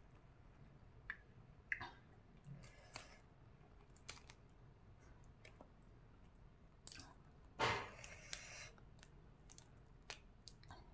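Fresh raw vegetables being torn and snapped by hand and chewed: scattered crisp snaps and clicks, the loudest a short crunch about eight seconds in.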